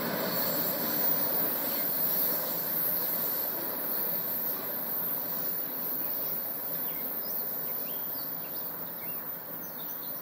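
Rumble and wheel noise of a CN freight train's covered hopper cars rolling away, slowly fading as the end of the train recedes.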